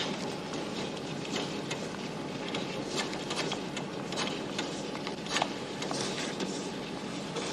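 Steady mechanical clatter of office machines, with irregular sharp clicks throughout.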